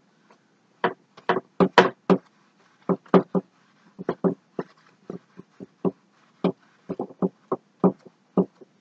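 Paintbrush strokes on a stretched canvas: a string of short, quick strokes, about two or three a second, as white paint is pulled outward into the blue background.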